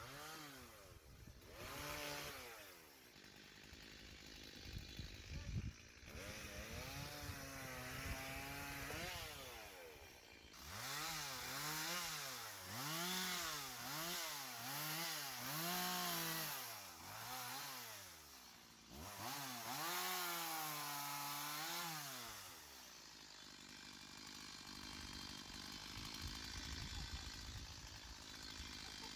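Two-stroke chainsaw revved in repeated throttle bursts, its pitch rising and falling several times in quick succession, then settling back to a low idle about three-quarters of the way through.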